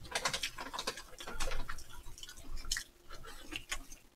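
A person chewing a mini hamburger up close: an irregular run of small mouth clicks and smacks.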